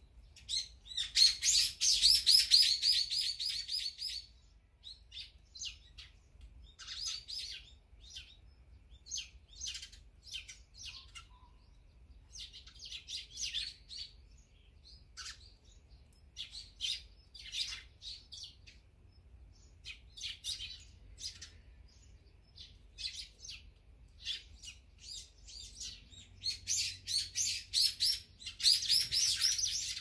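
Small songbirds chirping: a dense bout of rapid, high chirps about a second in, scattered single chirps through the middle, and another dense bout near the end.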